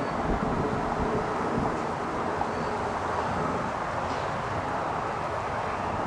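Steady outdoor rumble of distant engines and machinery, with a faint steady hum.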